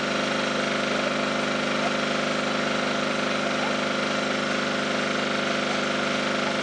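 Fire-brigade pump engine running steadily at a constant speed, supplying water to the hose lines.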